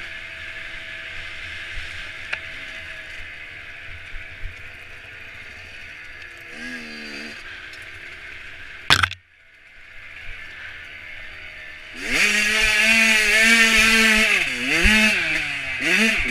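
Dirt bike engine heard from the rider's onboard camera, running at part throttle and revving up briefly; after a sharp click and a short drop-out about nine seconds in, it comes back much louder, revving hard up and down with the throttle.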